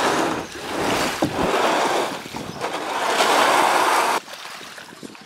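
Plastic Perception sit-on-top kayak hull scraping over beach pebbles as it is shoved along the shingle, in three long scrapes, the last cutting off suddenly about four seconds in.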